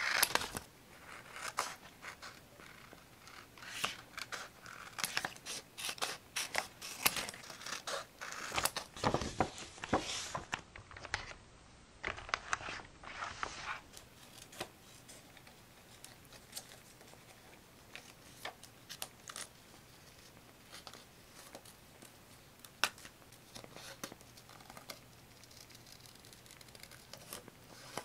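Paper crafting at close range: paper being handled and worked, with quick scratchy strokes and rustles that come thick in the first half, then thin out to scattered light taps.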